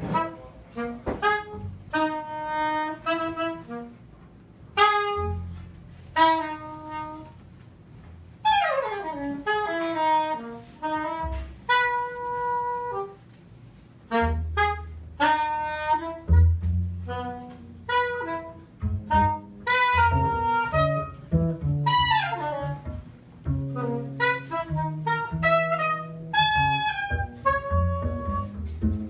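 Live free jazz trio of saxophone, double bass and drums. The saxophone plays short, stabbing phrases with a long falling glide about eight seconds in, over low double bass notes and scattered drum and cymbal hits.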